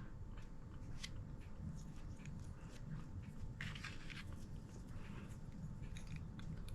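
Faint metal clicks and short scrapes of a Mosin-Nagant bolt head being slid onto its guide bar and rotated.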